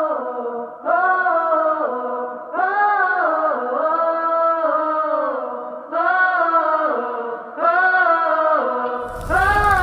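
Background music that opens with a chant: long held vocal notes in phrases of one to two seconds, each sliding up at the start and down at the end. A rush of wind noise comes in near the end.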